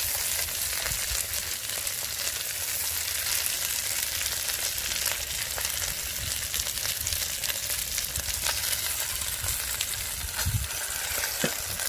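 Hot oil sizzling steadily in a pot of fried fish, with a few faint clicks as the pieces are pushed and packed together by hand.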